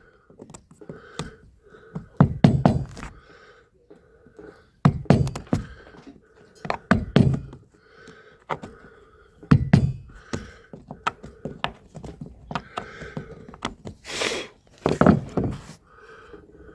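Hammer blows on wooden deck boards, coming in bursts of several quick knocks every few seconds, as the plugs and screws holding the fore deck covering boards are worked out.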